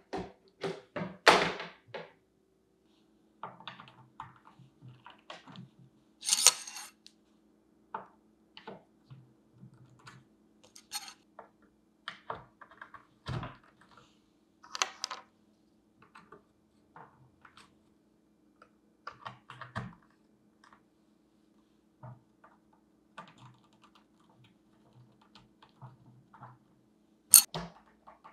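Hard plastic and metal planter parts knocking, clicking and scraping in irregular handling sounds as a self-watering planter pot and its metal trellis are fitted together by hand, with a sharp click near the end. A faint steady hum runs underneath.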